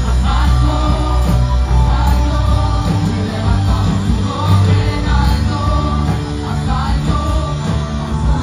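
Live band playing loud amplified music with strong bass and a singing voice, over large loudspeakers.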